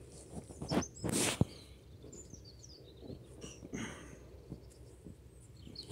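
A few short rustling bursts and a sharp click about a second in, then faint bird chirps.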